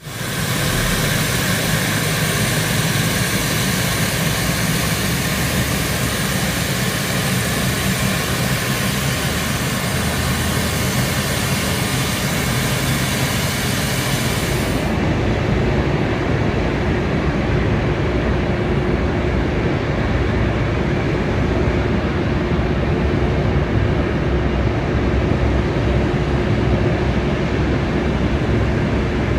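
Steady, loud aircraft engine noise from a parked or taxiing cargo plane. About halfway through, the high hiss drops away and a steady low hum comes in.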